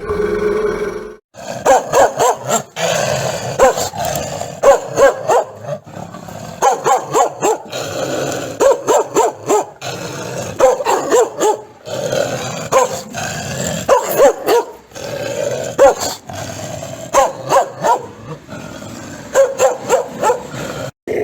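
An angry dog barking in fast runs of barks, with growling between the runs. The barking breaks off briefly about a second in.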